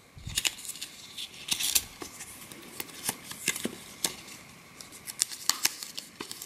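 A small paper fact booklet being handled and opened by hand: short, irregular rustles and clicks of paper.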